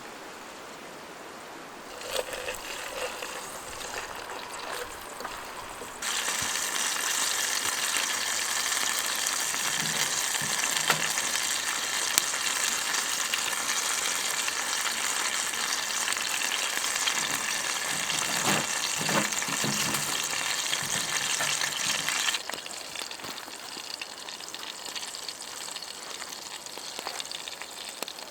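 Sausages and scrambled eggs frying in butter in a British Army mess tin over a Firebox wood stove, a dense sizzle that turns much louder about six seconds in and drops back sharply a few seconds before the end. A few soft knocks come in the middle.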